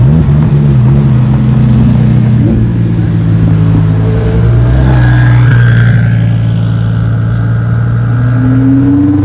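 Twin-turbocharged Audi R8 V10 Plus's V10 engine running steadily at low revs as the car rolls slowly forward, with a short rise in revs near the end.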